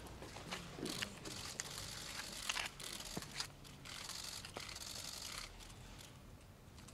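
Scattered sharp clicks of camera shutters, a handful spread over several seconds, above a steady rustling hiss.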